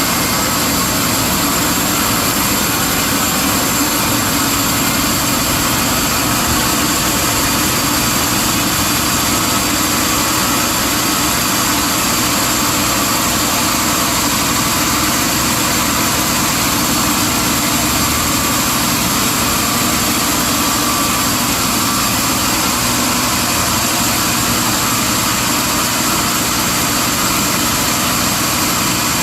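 Sawmill machinery running steadily, a constant mechanical drone with a few steady whining tones and no starts or stops.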